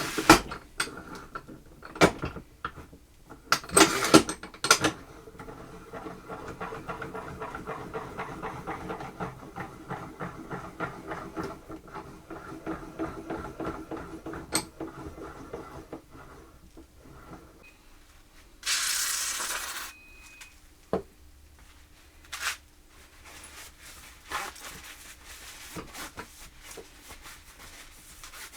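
Aerosol can of white lithium grease sprayed in one hissing burst of about a second and a half, roughly two-thirds of the way through, lubricating the quick-release vise mechanism. Before it come a few sharp knocks and a long stretch of fast, even mechanical ticking; a few more knocks follow.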